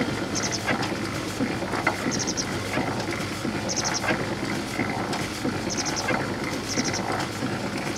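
Steam launch with steam raised and its engine standing still: a steady hiss with scattered crackles and clicks, and a quick burst of high chirping pips every second or two.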